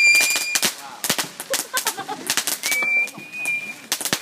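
Consumer fireworks going off in rapid, irregular crackling pops. A steady high whistle sounds over them at the start and again about three seconds in.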